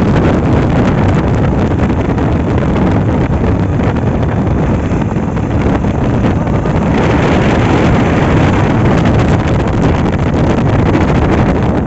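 Loud, steady wind rumble on the microphone, turning hissier about seven seconds in.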